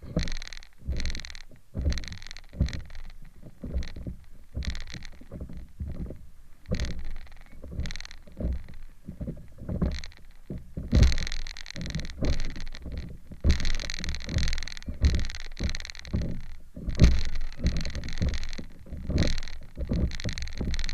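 Small waves slapping and splashing against the nose of a stand-up paddleboard moving through choppy lake water: quick irregular splashes with low thuds, a few each second, growing louder and busier about halfway through.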